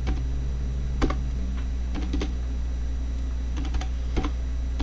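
Typing on a computer keyboard: sparse, irregular keystrokes, some in quick little clusters, over a steady low hum.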